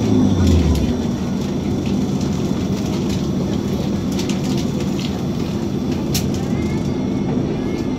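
Cabin noise of an Irisbus Citelis 18 articulated city bus on the move: steady road and body noise, with the engine's low drone dropping away about a second in. A sharp click sounds about six seconds in.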